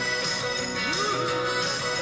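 Music with strummed guitar playing.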